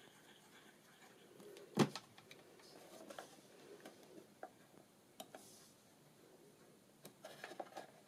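Quiet handling of card as a die-cut paper decoration is pressed into place on a card box: one sharp knock about two seconds in, then scattered light taps and rustles, more of them near the end.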